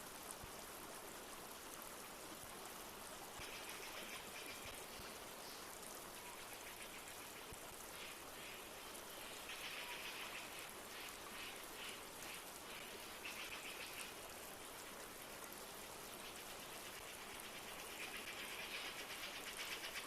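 A flowing rainforest stream with a steady rush of water, over which come several bouts of a rapid, buzzy trill, the longest near the end.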